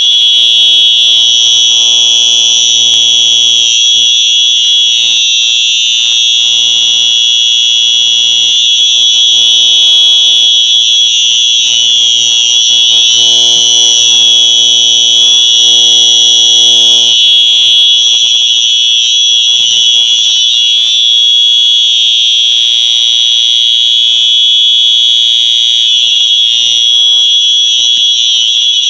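Simplex fire alarm sounding continuously during a test: a loud, steady, high-pitched tone with no breaks. A fainter lower hum runs beneath it and drops away over the second half.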